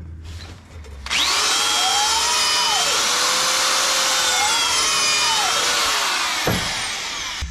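Electric drill spinning a cleaning tool inside the planter's closing-wheel bores. It starts about a second in with a steady high whine whose pitch dips and recovers twice as the tool loads up, then winds down near the end.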